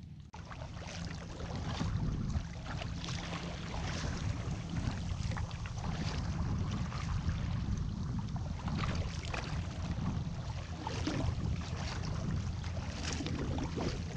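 Wind buffeting the microphone in a steady rumble, with water splashing and sloshing around a sea kayak.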